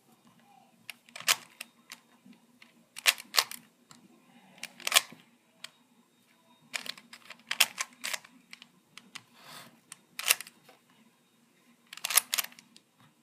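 A plastic Rubik's cube having its layers turned by hand, with short clicking and clacking bursts about ten times, sometimes two in quick succession. A faint steady hum runs underneath.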